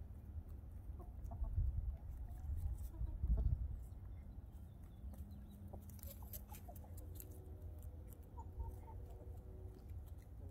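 Hens clucking softly now and then as they forage, over a low rumble that swells in the first few seconds.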